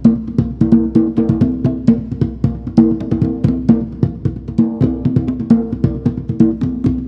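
Background music led by a fast, steady drum and percussion beat over a low sustained melodic line.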